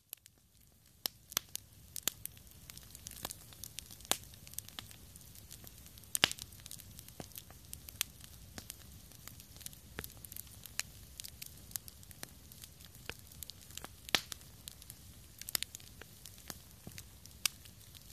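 Wood campfire burning, crackling with irregular sharp pops and snaps over a soft steady background.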